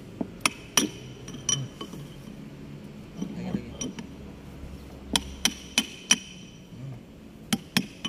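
Metal tool tapping on the body of a bulldozer transmission control valve to loosen the reducing valve's cover, with sharp ringing metallic taps. They come in three groups: about four in the first second and a half, four more around five to six seconds in, and two near the end.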